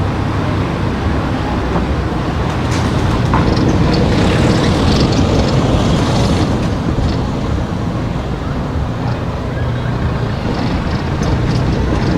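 Steady low rumble of a car driving along a road, engine and tyre noise, with a few faint light clicks.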